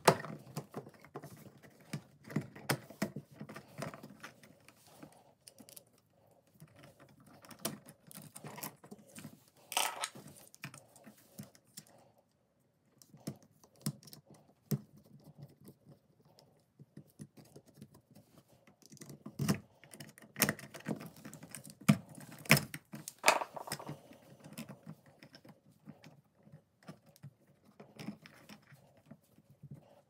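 Small scattered clicks, taps and scrapes of hands working an old outlet off its wires: a small screwdriver pushed into the push-in wire releases, with the plastic outlet and copper wires being handled. A few sharper clicks stand out about ten seconds in and again around twenty seconds in.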